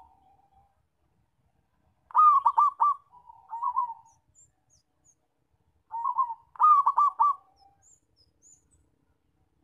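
Zebra dove (perkutut) singing two phrases, one about two seconds in and another about six seconds in. Each phrase is a quick run of cooing notes followed by a lower, rolling coo.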